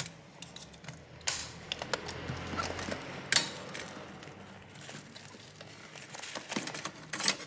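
Small clicks and taps of a screwdriver working on a laptop's screws and plastic and metal parts during disassembly. Sharper clicks come about a second and a half and three and a half seconds in, and a quick cluster comes near the end.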